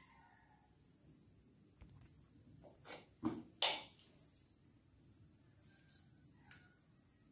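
A cricket's continuous high-pitched trill, with two sharp clicks about three and a half seconds in as a knife cuts cauliflower into a steel bowl.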